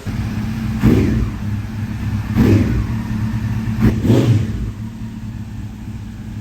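A vehicle engine idling steadily, blipped up in four short revs about one, two and a half and four seconds in.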